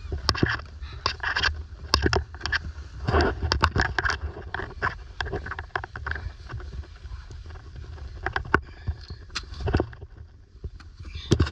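Irregular knocks, clatters and scrapes of camping gear being handled, denser for the first several seconds and then sparser, over a low steady rumble.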